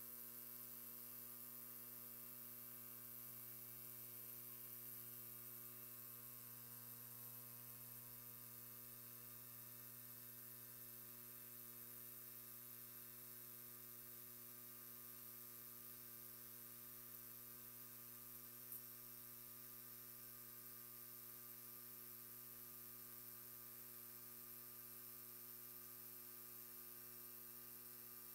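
DADI DA-968 ultrasonic cleaner running with a bath of keyboard switches in cleaning solution: a faint, steady electrical hum.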